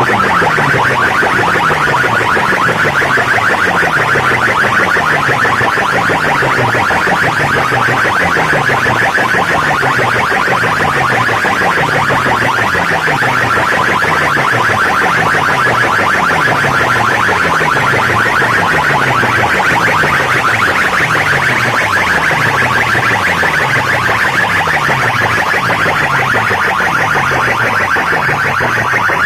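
Loud electronic competition music from a DJ sound-box system: a harsh buzzing synth tone over a bass note that drops in pitch, repeating a little more than once a second.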